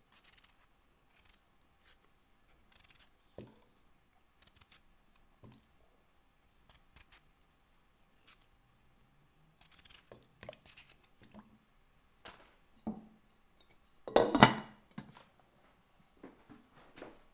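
A knife peeling and cutting a raw potato: short, scattered scrapes and slices with soft knocks on the board. The strokes come sparsely at first and get busier, with the loudest cut about fourteen seconds in.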